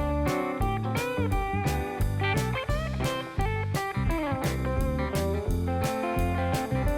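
Background music: blues-rock electric guitar with bending notes over a steady drum beat.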